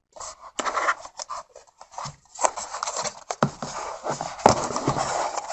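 Packaging being handled during an unboxing: irregular rustling and crinkling with sharp little clicks and knocks as the contents are taken out of the box.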